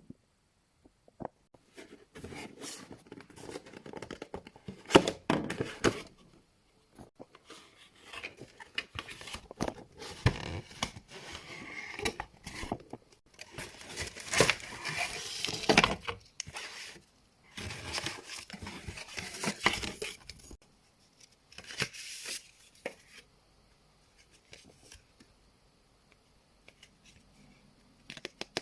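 Packaging being handled and torn open: irregular rustling, tearing and crinkling with sharp clicks and knocks, dying down to faint handling sounds for the last few seconds.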